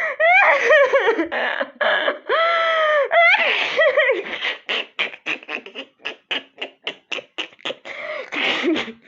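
A person laughing hard: long, high-pitched squealing laughs for the first few seconds, then a rapid run of short breathy gasps, about five a second, and another squealing note near the end.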